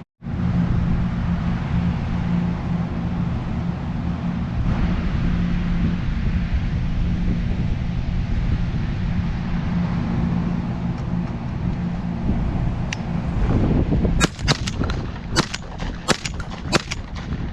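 Strong wind buffeting the microphone with a steady low rumble. About fourteen seconds in, a quick run of sharp cracks starts, several of them in close pairs.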